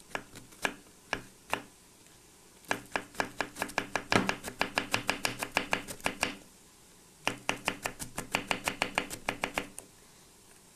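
Kitchen knife chopping long green peppers into rings on a wooden cutting board. A few separate strokes come first, then two quick runs of about six chops a second, each a few seconds long, with a short pause between them.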